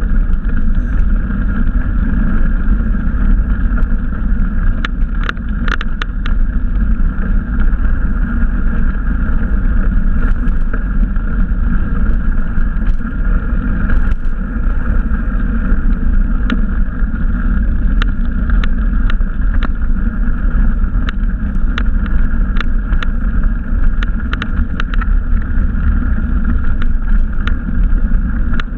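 Bicycle riding along a trail, heard on a GoPro Hero: a steady rumble of wind and tyres, with scattered light clicks and rattles from about five seconds in.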